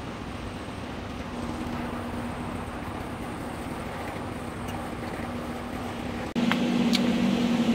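Steady mechanical hum over an even hiss. It jumps louder about six seconds in, and two short clicks follow soon after.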